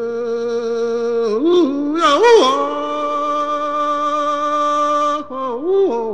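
A lone man singing an unaccompanied work-song holler, holding long steady notes with quick swoops up and down in pitch between them.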